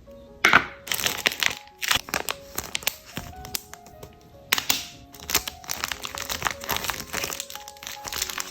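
Plastic packaging crinkling and crackling as photo cards are handled and packed, in a string of sharp irregular clicks and rustles, with soft background music underneath.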